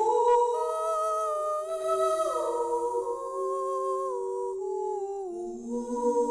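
Sound of a singing-sculpture installation: several sustained humming tones held together in slow chords, each wavering slightly and sliding to a new pitch every second or two.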